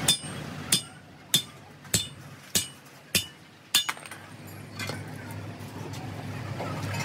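Sledgehammer blows on the end of a steel truck leaf spring resting on a steel block: about seven sharp metallic clangs at an even pace, a little over half a second apart, each ringing briefly. The hammering stops about four seconds in.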